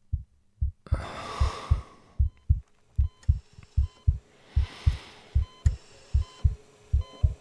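Heartbeat sound effect: pairs of low, dull thumps repeating a little more than once a second. Two swells of rushing hiss rise and fade over it, one about a second in and one near the middle.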